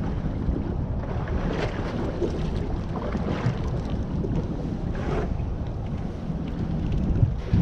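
Wind buffeting the microphone on a drifting fishing boat: a steady low rumble over the wash of the water, rising briefly a few times.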